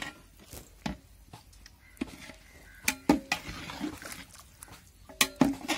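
Metal ladle stirring rice into thick masala gravy in a large aluminium pot: a string of sharp clanks of the ladle against the pot, loudest about three seconds in and again near the end, with wet sloshing in between.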